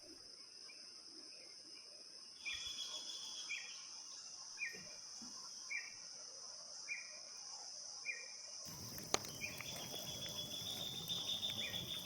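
Forest ambience of insects: a steady high, shrill insect drone, joined a few seconds in by a short call repeated about once a second. Near the end the background grows fuller, with a second steady insect trill and more of the short calls.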